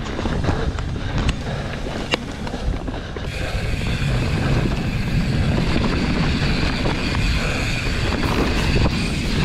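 Wind buffeting the microphone over the low rumble of mountain-bike tyres on the trail, with scattered clicks and rattles from the bike. About three seconds in, a steady hiss grows louder and stays.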